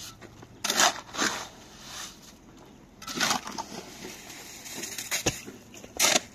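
Shovel scraping and scooping wet cement mix in a steel wheelbarrow: four short gritty scrapes, spaced unevenly, with a sharp knock shortly before the last one.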